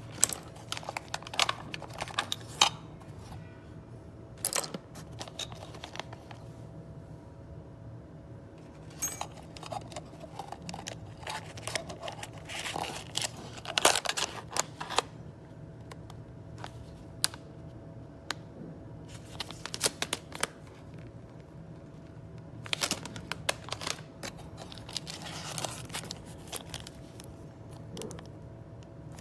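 Scattered sharp clicks, taps and short rustles of small hardware and case parts being handled, over a steady faint electrical hum.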